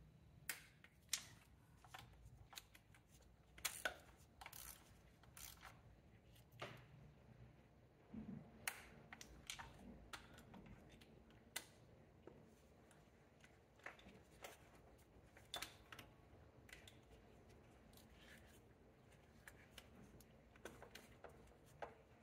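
Hand wrench clicking sharply and irregularly as the intake manifold fasteners are torqued down to spec, with a few louder clicks among softer ticks.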